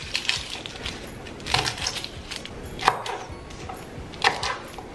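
Chef's knife trimming the ends off garlic cloves on a wooden cutting board: about five scattered, sharp knocks of the blade against the board.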